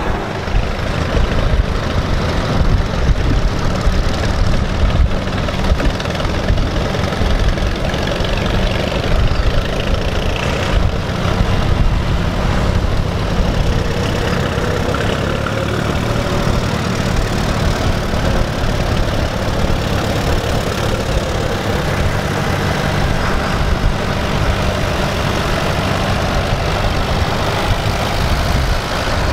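Engines of several vintage Allis-Chalmers farm tractors running as the tractors drive slowly past one after another.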